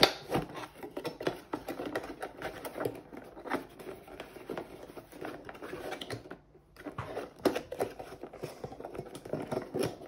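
Irregular clicks, taps and rustles of a fan and its cable being handled and packed away, with a short pause about six and a half seconds in.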